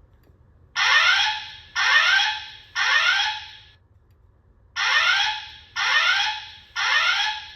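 Wheelock E50 speaker strobe, driven by a Potter EVAX voice evacuation panel, sounding its evacuation alert tone: three loud falling-pitch tones of about a second each, a pause, then three more. This is the alarm signal that comes before the recorded evacuation announcement.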